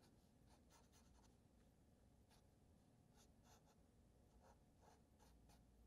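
Faint short scratches of a felt-tip Sharpie marker drawing strokes on paper, a dozen or so spread through otherwise near silence.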